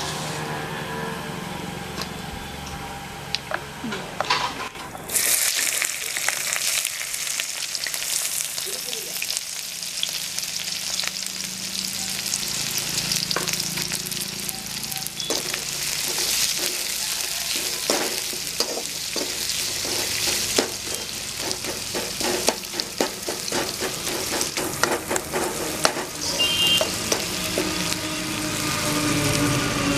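Chopped onions dropped into hot oil in a metal kadai, starting a loud sizzle about five seconds in. The onions keep frying with a steady sizzle while a slotted metal spoon stirs them, clicking and scraping against the pan over the second half.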